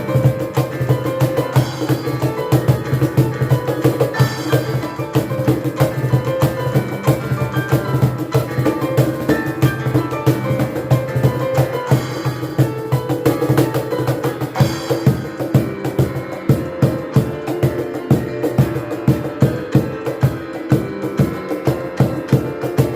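Piano and cajón playing together: melodic piano notes over a steady hand-drummed beat, the drum strikes sharper and more prominent in the second half. A few brief high shimmering flourishes ring out along the way.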